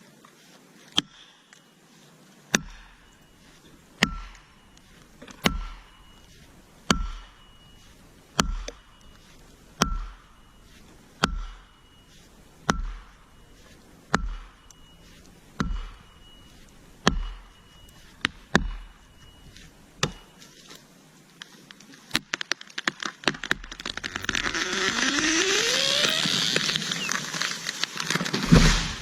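Heavy blows struck at an even pace, about fourteen of them roughly a second and a half apart, each with a short metallic ring. Then rapid cracking and a loud rushing crash lasting several seconds, the sound of a felled tree breaking off and coming down through foliage.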